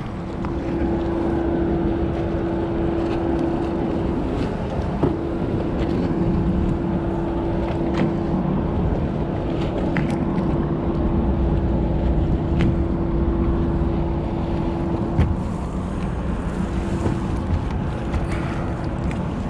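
Small fishing boat's motor running steadily with a constant hum under a wash of water and wind noise, with a few sharp clicks scattered through.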